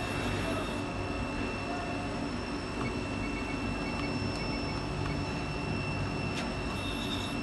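Steady running hum of a powered-up CNC vertical machining centre, a low rumble with a constant high-pitched whine over it, and two faint clicks in the second half.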